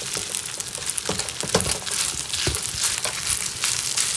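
Rice sizzling in a hot wok as a metal spatula scrapes and knocks through it, breaking up the clumps, with a few louder knocks of the spatula about one to two and a half seconds in.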